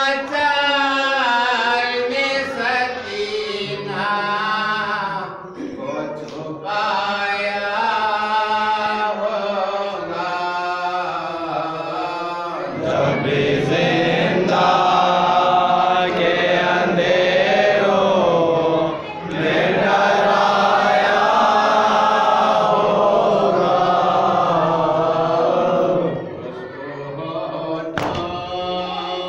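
A man chanting a noha, a Shia lament, in a slow mournful melody into a microphone. From about halfway through, a group of men join him in unison, and the chant grows fuller, before thinning out again near the end.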